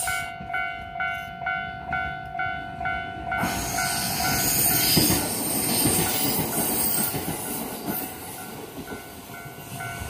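Japanese level-crossing alarm bell dinging about twice a second while a JR 701-series electric train passes over the crossing. The train's running noise rises suddenly about three seconds in, stays loud, then fades near the end.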